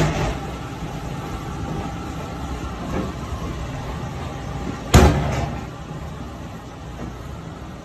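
Raw ground beef slapped down hard onto a stainless steel worktable: a heavy slap right at the start and a louder one about five seconds in, over a steady low rumble.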